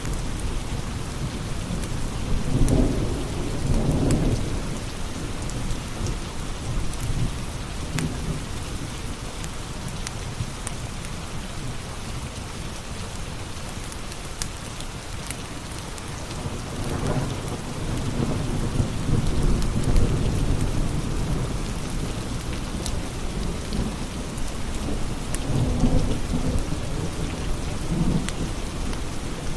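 Steady rain hissing, with low rumbles of thunder swelling up three times: near the start, past the middle and near the end. Scattered sharp crackles from a wood fire run through it.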